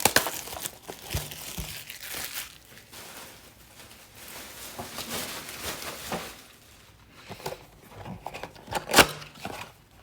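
Plastic wrapping crinkling and tearing as a blaster box of football trading cards is unwrapped and opened, with rustling packaging throughout and a sharp snap about nine seconds in.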